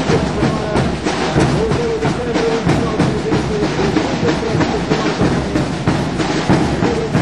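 Street drum band of large bass drums (bombos) and snare drums beating a steady marching rhythm, with an accordion playing along.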